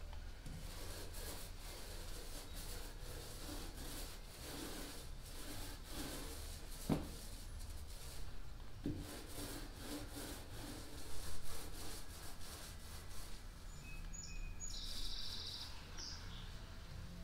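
Thin-nap paint roller rolling paint onto a plywood boat hull, a soft repeated rubbing with each stroke. A sharp knock comes about seven seconds in, and brief high chirps near the end.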